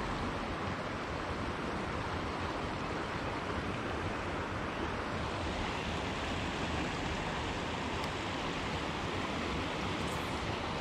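River water rushing over a shallow riffle and rock ledge, a steady even rush of white noise.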